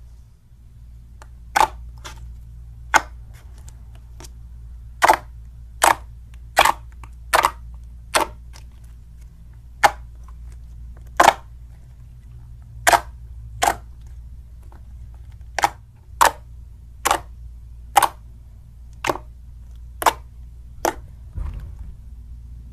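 Clear glitter slime being pressed and stretched by hand, giving sharp popping clicks as air pockets burst, about one a second at uneven intervals, with a softer squelch near the end.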